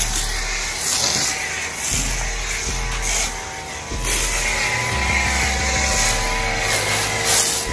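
Greenworks Pro pressure washer running, a steady motor drone with the hiss of its water spray, which swells and eases every second or so.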